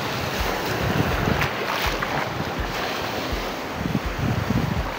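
Wind buffeting the microphone in uneven gusts, over the steady wash of shallow water lapping.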